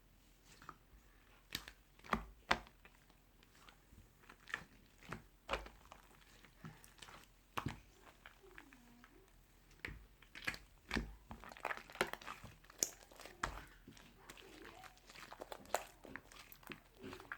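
Irregular crisp crunching and crinkling clicks, a few sharp ones standing out, growing denser in the second half.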